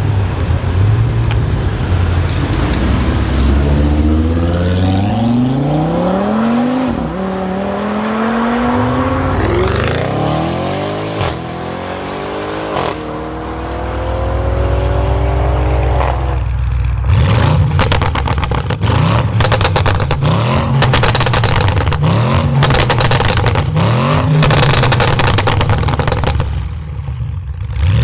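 Audi RS6 Avant C8's twin-turbo 4.0 V8 through a decatted Capristo exhaust with the particulate filter removed, revving in long climbs that drop back and rise again. In the second half it is blipped in short, repeated revs with loud, dense crackles and pops from the exhaust.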